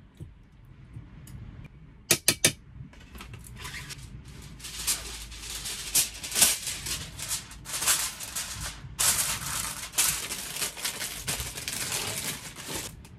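Three sharp clicks about two seconds in, then a sheet of kitchen foil being handled and crumpled, with a dense, irregular crinkling and crackling that stops just before the end.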